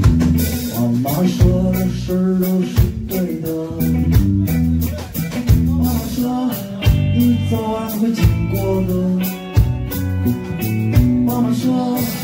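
Live folk-rock band playing: electric guitar, bass and drum kit keeping a steady beat, with a male voice singing over it.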